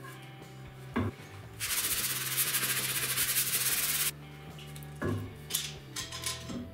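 Hand sanding a pine stick with a sanding sponge: a dense, scratchy rubbing lasting about two and a half seconds. A sharp knock comes about a second in, and a few knocks and clicks near the end as a bar clamp is fitted, over quiet background music.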